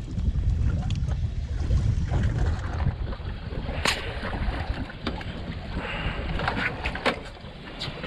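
Wind buffeting the microphone on an open boat. From about four seconds in come several sharp knocks and clicks.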